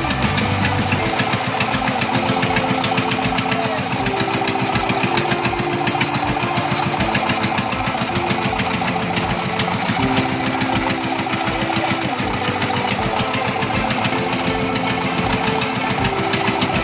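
Motorboat's engine running steadily with a rapid, even knocking beat.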